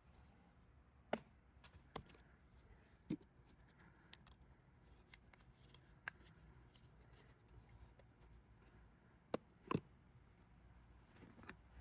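A few short clicks and taps of small metal ratchet parts being handled and fitted during reassembly of a Craftsman quarter-inch drive boxhead ratchet, against near silence; the loudest are a pair of clicks about nine and a half seconds in.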